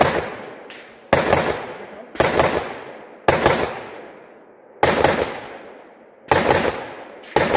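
Steyr AUG bullpup rifle fired in a steady string: about six loud reports a second to a second and a half apart, each sharp crack followed closely by a second, quieter report and a long echo dying away.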